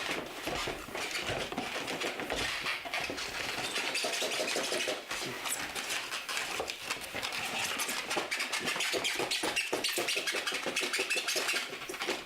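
Packaging being handled and pulled open: a dense, irregular run of rustling, crinkling and small knocks as the aquarium air compressor is unboxed.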